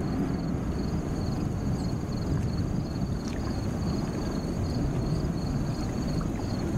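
Boeing 787 Dreamliner taxiing at a distance: a steady low jet rumble with a faint high warbling tone above it.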